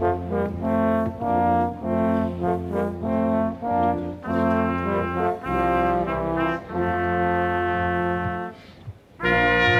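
Brass ensemble playing music in full chords, with notes changing about every half second at first and longer held chords later. Near the end it breaks off briefly before a loud new chord comes in.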